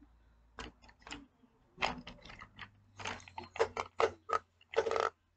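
Colouring pencils and markers being handled: a run of irregular clicks and clatters, busiest and loudest in the second half.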